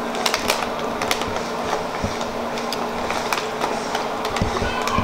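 Close-up eating sounds: hands tearing apart browned chicken pieces and chewing, heard as a run of small crackles and clicks.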